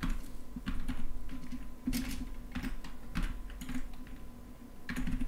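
Typing on a computer keyboard: a string of irregularly spaced keystroke clicks.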